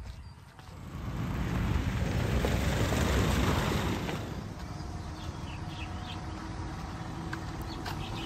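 A motor vehicle passing close by, its noise swelling over a couple of seconds and then easing to a steady hum.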